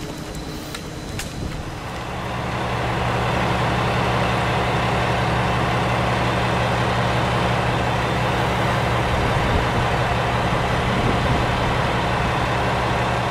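Diesel railcar idling: a steady engine hum that sets in about two seconds in and holds.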